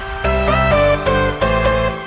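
Background music: a melody over a bass line, with new notes about twice a second.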